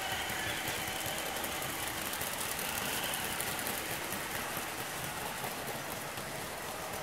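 Märklin gauge 1 model freight wagons rolling past on a garden-railway track: a steady, fast clatter of metal wheels on the rails. A faint hum from the electric locomotive's motor fades out in the first moment.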